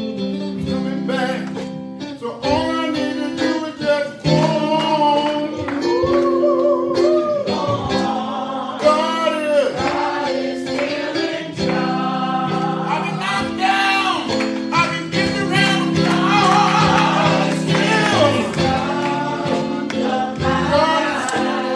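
Gospel song sung with guitar accompaniment.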